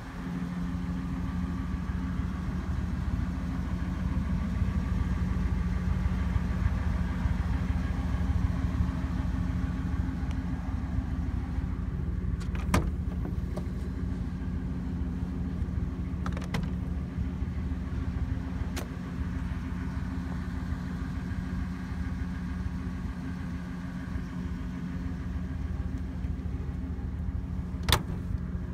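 A Ford 15-passenger van's engine idling steadily, with a few sharp clicks, the loudest near the end.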